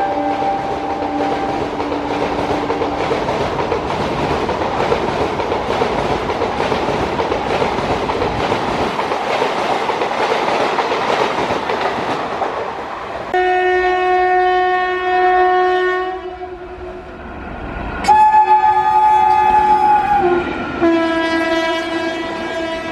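A WAP-4 electric locomotive's twin horn dies away, then a high-speed express of ICF coaches rushes past for about ten seconds, its wheels clattering over the rail joints. Then come three long horn blasts, the middle one the loudest.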